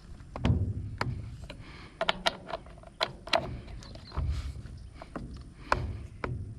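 Irregular metal clicks and clinks with a few dull knocks as the chainsaw's bar nuts are tightened down with a hand tool after the chain tension is set.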